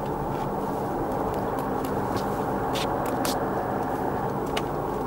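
Steady road and engine noise inside a moving car at highway speed, tyres and engine making an even rumble, with a few light clicks around the middle.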